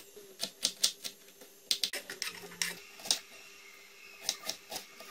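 Kitchen knife slicing raw potatoes on a wooden cutting board: irregular sharp taps of the blade hitting the board, a few at a time. A faint steady hum runs underneath.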